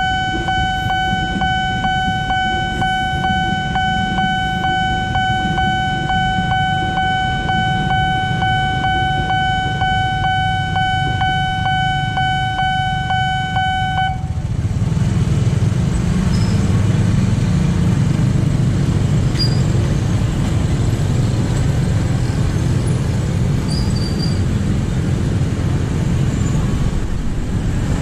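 Railway level-crossing warning alarm: a steady electronic tone pulsing about twice a second over the rumble of a passing train, cutting off suddenly about halfway through. After it stops, motorcycle and car engines idle and pull away.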